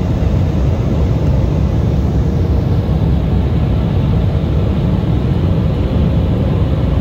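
Airliner cabin noise in flight: the engines and rushing air make a loud, steady low rumble with a faint steady hum above it, heard from inside the cabin.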